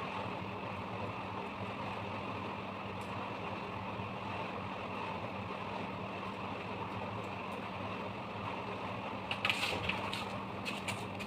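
A steady hum and hiss of running machinery, with a few short, sharp clicks and taps near the end.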